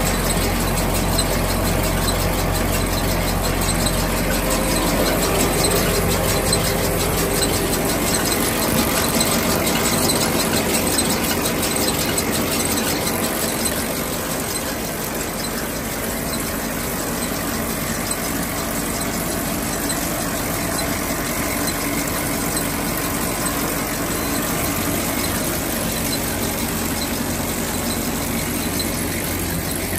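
Machinery running steadily, with several held tones over a fast, even rhythm; slightly quieter from about halfway through.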